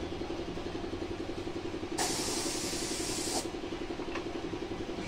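Air spray gun hissing as it sprays paint onto a steel truck body, one burst about two seconds in lasting over a second, over a steady, rapidly pulsing machine running underneath.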